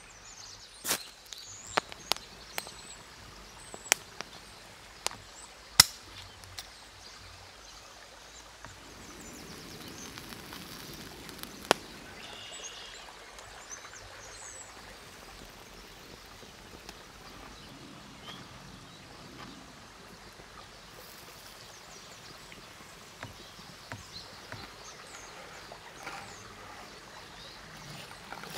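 Forest stream running steadily, with occasional birdsong. Sharp clicks and knocks from knife handling stand out over it, most of them in the first six seconds and the loudest about six seconds in.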